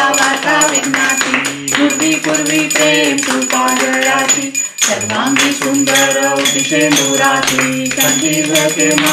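A devotional aarti hymn sung by a group, with long held notes over a steady drone and rhythmic hand-claps keeping time; the singing pauses briefly about halfway through.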